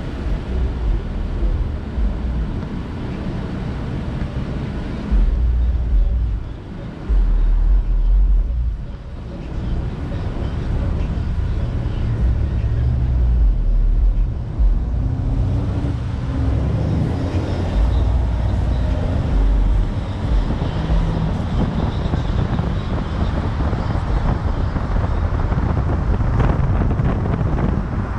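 Wind buffeting the microphone in heavy low gusts over the steady noise of traffic on a city road.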